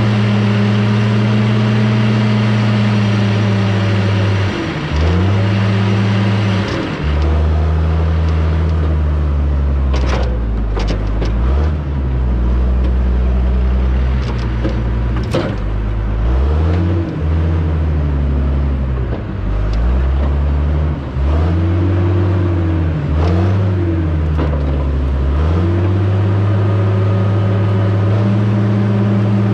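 Diesel engine of a heavy logging machine working under changing load, its pitch dropping and climbing again and again through the middle, steady at the start and end. A few sharp knocks and clanks come about a third of the way in.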